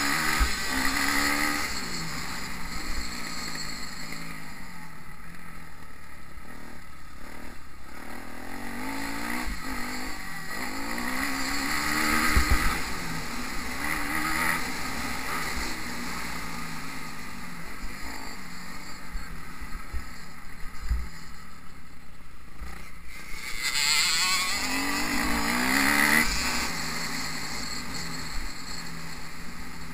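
Motocross bike engine heard from on board, revving up and dropping off again and again as it accelerates and shifts gear along a dirt track. The runs peak about a second in, near the middle and near the end, with some low thumps along the way.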